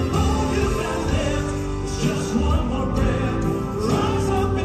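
Male gospel quartet singing in close harmony on long held notes, backed by a live band with a steady bass.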